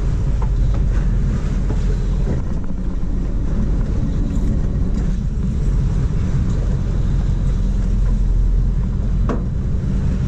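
Sportfishing boat's engine idling in a steady low rumble, with wind on the microphone. A sharp knock about nine seconds in.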